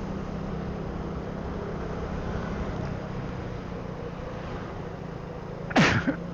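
Motorcycle engine running steadily under way, with wind and road noise. Near the end, a brief loud sound falls in pitch.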